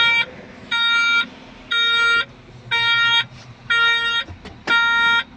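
Cat 14M motor grader's cab warning alarm beeping, about one half-second beep each second, six beeps in all. It is sounding for an active steering malfunction fault from a broken right steering sensor wire.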